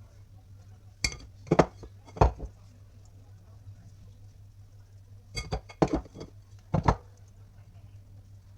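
Kitchen dishes and utensils clinking and knocking as they are handled, in two short clusters: three knocks starting about a second in and four more a few seconds later. A steady low hum runs underneath.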